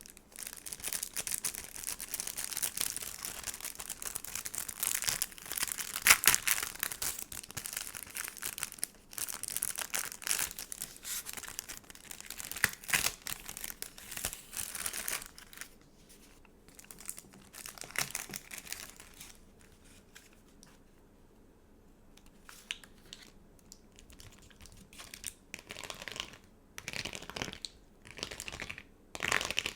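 Stickers and their packaging being handled, crinkling and tearing almost without a break for about the first fifteen seconds. Then come sparser rustles and sharp taps, with a near-quiet stretch of a few seconds about two-thirds of the way through.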